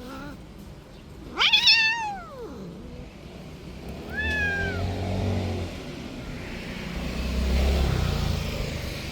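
A cat meowing: one loud, drawn-out meow that rises and then falls in pitch about a second and a half in, then a shorter falling meow about four seconds in. A low rumble runs under the second half.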